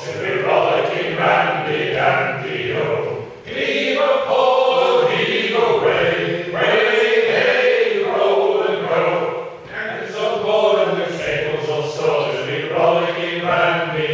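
A group of men singing a sea shanty unaccompanied, in long sustained phrases with short breaths between them.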